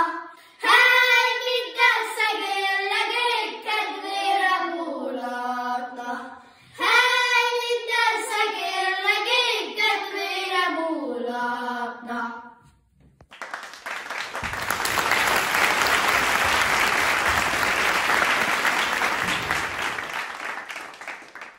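Children singing a Hungarian folk song of the Gömör charcoal burners in unison, unaccompanied. About twelve seconds in the song ends, and after a brief pause applause starts and fades out near the end.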